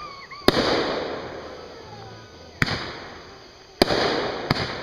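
Aerial fireworks shells bursting: four sharp bangs at uneven intervals, each trailing off into a fading echo over a second or so.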